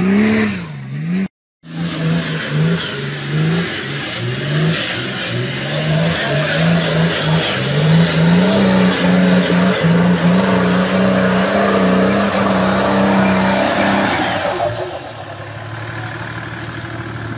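V8-swapped Nissan Patrol Y60 engine revving under load in mud, its pitch climbing and falling again and again, then held high for several seconds before dropping to a lower, steadier note near the end. The sound cuts out completely for a moment about a second and a half in.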